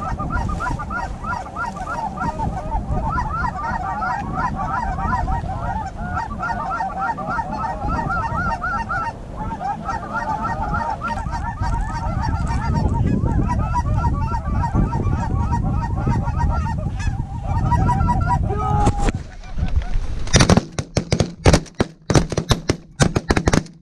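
A large flock of Canada geese honking continuously as they come in to the decoys. Near the end a rapid volley of about a dozen shotgun blasts from several hunters breaks out.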